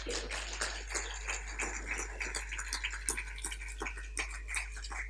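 Audience applauding: a dense, irregular patter of hand claps that dies away at the very end.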